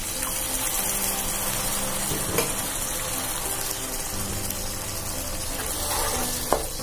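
Tomato masala sizzling steadily in a hot non-stick frying pan as a thin, mustard-tinged water is poured in, then stirred with a wooden spatula. A couple of sharp clicks sound against the pan.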